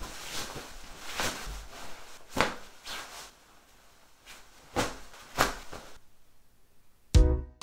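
Kimono fabric rustling and a cord swishing as a tasuki cord is flung over the shoulders and tied to hold back the sleeves, with several sharp swishes. Music with a beat starts near the end.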